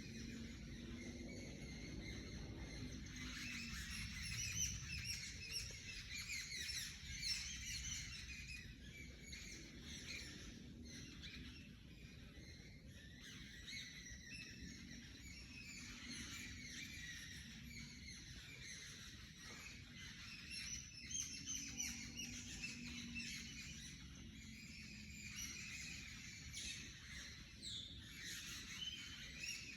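Many forest birds singing at once, a dense chorus of overlapping chirps and trills, over a steady low rumble.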